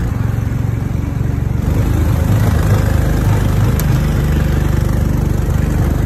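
Honda 5 hp single-cylinder four-stroke small engine powering a golf cart, running steadily at one speed with its throttle not hooked up.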